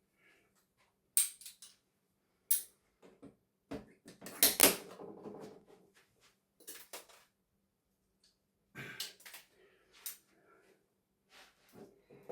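Irregular clicks, taps and scrapes of hard plastic and metal as a broken television's casing is worked at by hand and with tools, busiest about four seconds in and again near nine seconds.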